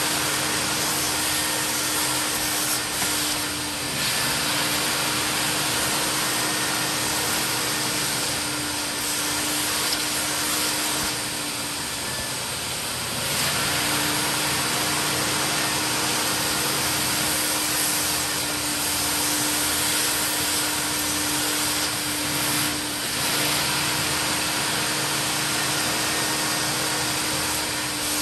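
Mytee Lite 8070 carpet extractor running steadily, its wand drawn across a carpet floor mat to suck up the cleaning water, with a steady hum under the rushing air. The sound dips briefly about four seconds in and again around twelve seconds in.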